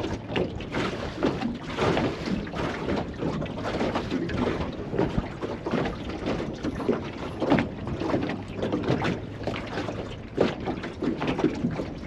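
Strong wind buffeting the microphone on a small fishing boat, in irregular gusts.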